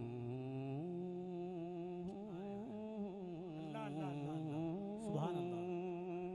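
Solo male voice singing a naat, drawing out one long melismatic line of held notes with quick wavering ornaments.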